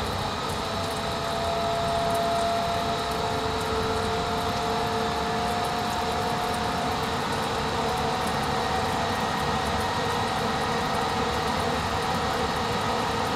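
Welding positioner's variable-speed table drive running, the turntable rotating under power: a steady mechanical whine over a broad running noise. The whine comes in about half a second in and creeps slowly up in pitch as the table is wound up to a faster rotation.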